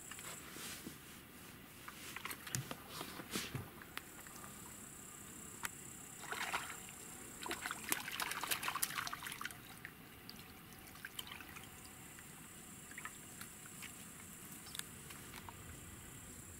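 Water splashing and sloshing at the surface near reeds, in irregular bursts: a few about two to four seconds in and a louder run about seven to nine seconds in. A steady high insect chirring runs under the quieter parts.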